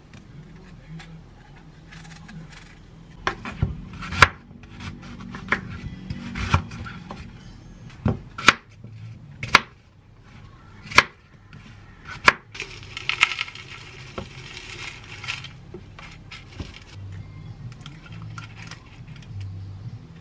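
Small kitchen knife cutting an apple into bite-size pieces on a wooden cutting board: a string of sharp, irregular knocks as the blade hits the board, followed by a few seconds of scraping.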